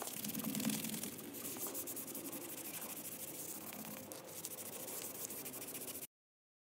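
Cloth rubbing over the outside of a bog oak bowl, wiping on sanding sealer: a steady scratchy wiping made of many quick strokes, which cuts off suddenly about six seconds in.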